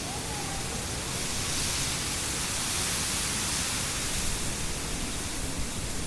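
Wind blowing through a stand of reeds: a steady rustling hiss that swells in the middle and eases off toward the end, over a low rumble of wind.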